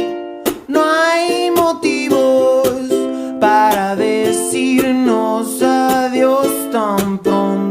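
Music: a ukulele-accompanied song in an instrumental stretch between sung lines, with a gliding melodic line over regular strummed chords.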